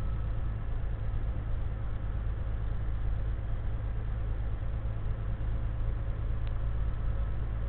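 Steady drone of a Volvo semi truck's diesel engine and road noise inside the cab while cruising on the road, with one brief click about six and a half seconds in.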